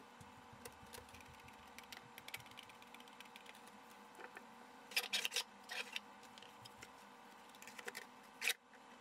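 Faint scattered clicks and light taps of handling a hand screwdriver and 3D-printed plastic parts: the screwdriver working a screw and being set down on the table, then the plastic dragon head being fitted onto the jaw. A cluster of clicks comes about five seconds in, and a sharp click near the end.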